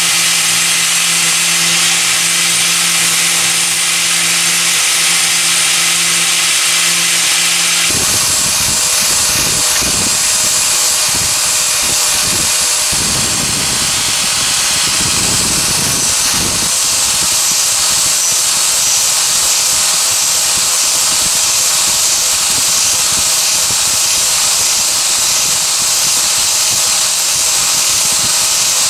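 Angle grinder with a sanding disc running steadily while a wooden knife handle is sanded on it. About eight seconds in the sound changes abruptly, and the grinding of the handle's end comes and goes unevenly as the wood is pressed to the disc.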